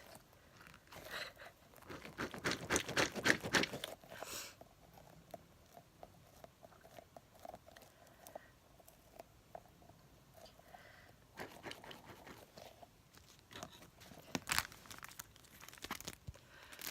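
Hands squeezing Orbeez water beads, making crackly, crinkling squishes in bursts, the loudest run about two to four seconds in and shorter ones later.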